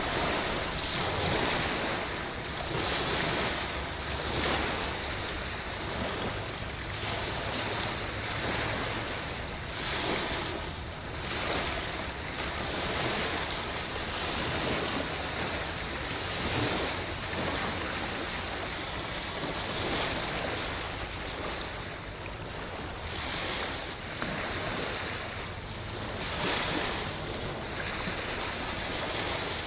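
River waves washing against the bank in repeated surges every two or three seconds, with wind blowing on the microphone and a low steady rumble underneath.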